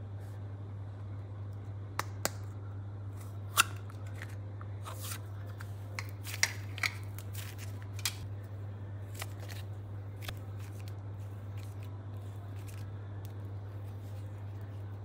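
Sharp clicks and snaps of a round plastic toy case being opened and handled, about a dozen of them between two and eight seconds in, over a steady low hum.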